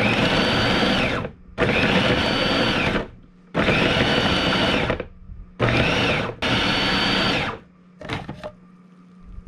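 Compact Braun food processor pulsed five times, chopping cucumber pieces fine: each pulse is a burst of motor whine about a second long that rises as it starts and drops as it stops, the last two close together. A few light plastic clicks follow near the end.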